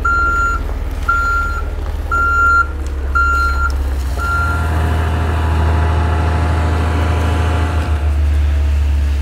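Dump truck backing up, its reversing alarm beeping about once a second, five beeps, over the diesel engine. The beeping stops about four and a half seconds in, and the engine runs louder and higher as the bed is raised to dump the load of screenings.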